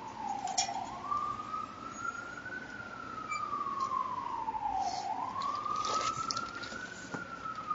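Emergency vehicle siren sounding a slow wail, its pitch rising and falling about every four to five seconds.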